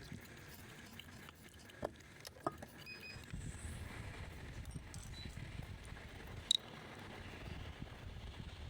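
Faint handling noise from parts and small tools being worked on: a few light clicks and taps, the sharpest about two thirds of the way in, over a low rumble that sets in about three seconds in.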